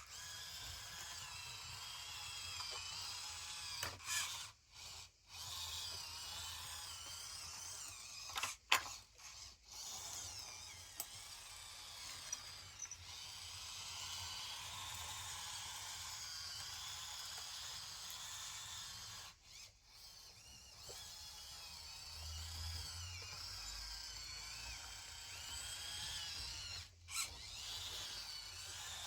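Small electric motors of RC construction models whining, their pitch rising and falling with speed, with a few brief stops and clicks along the way.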